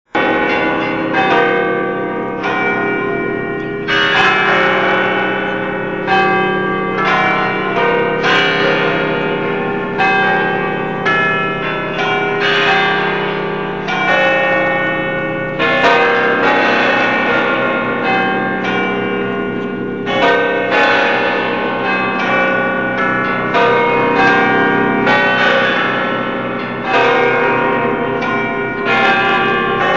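Almudena Cathedral's bells rung as a concert: several bells struck one after another about once a second, each note ringing on and overlapping the next.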